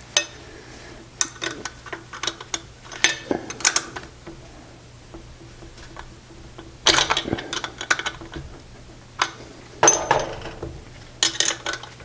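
A wrench tightening nuts on the U-bolts that clamp pillow block bearings to a steel bicycle frame: scattered metallic clicks and short rattling runs of clicks, the loudest about seven seconds in and twice near the end.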